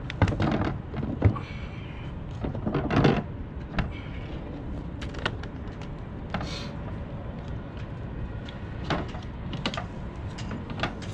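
Lewmar Ocean Series hatch, aluminium frame with acrylic lid, being set into its marine-plywood base in the deck cutout and handled. A few knocks and clatters come in the first three seconds, then light clicks and taps about nine to eleven seconds in.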